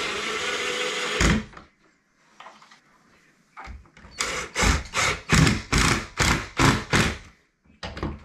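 Cordless drill driving screws through a black iron pipe shelf flange into the wall: a steady whir for just over a second, then after a short pause a run of about nine short trigger pulses, two or three a second, as the screw is snugged down.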